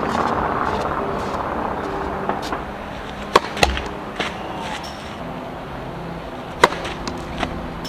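Tennis ball bounced on a clay court a few times, then served: one sharp racket strike on the ball about two-thirds of the way in, with a fainter knock shortly after.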